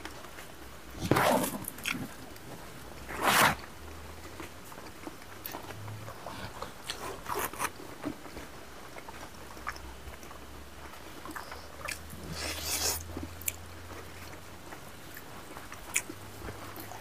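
Close-miked mouth sounds of eating pork and rice by hand: chewing and crunching, with short louder noisy bursts about a second in, at about three and a half seconds, and again near thirteen seconds.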